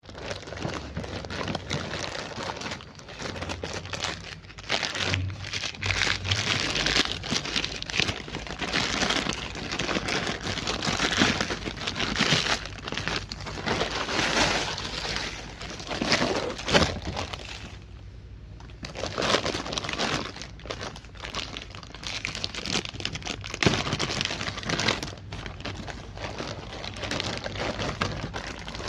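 Parcel packaging crinkling and rustling as it is torn open and handled by hand, in dense crackling bursts with a short lull about eighteen seconds in.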